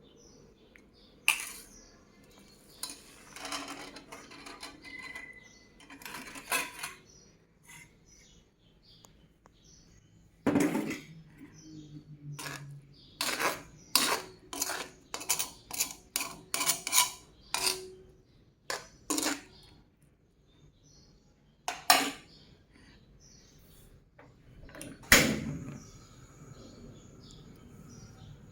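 Kitchen utensils knocking and clinking against pots and dishes: scattered sharp strikes, with a quick run of about two a second in the middle.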